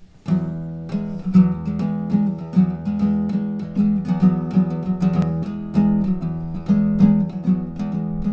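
Acoustic guitar strummed in a steady rhythm, chords starting about a quarter second in.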